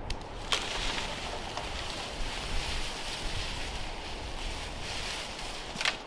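Wind rushing through the forest treetops, a steady hissing gust. Two sharp crackles come about half a second in and near the end.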